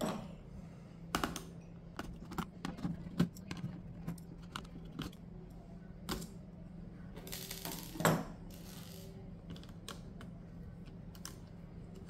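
Small screwdriver and fingers working the screws and connector of a laptop's 2.5-inch hard drive as they are removed: scattered light clicks and small metal taps. There is a short scrape about seven seconds in and a sharper click just after, over a faint steady low hum.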